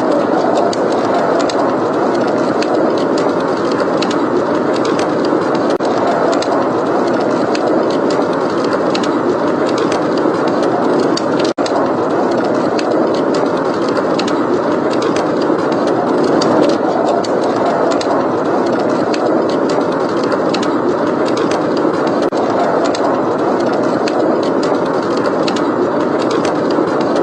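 Steady blizzard wind with a fireplace crackling: a constant rushing noise with frequent small, sharp crackles and pops from the burning wood.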